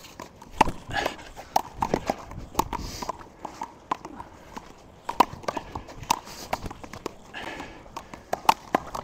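Handball rally: a small rubber handball being slapped by hand and smacking off the wall and court, in a string of irregular sharp smacks.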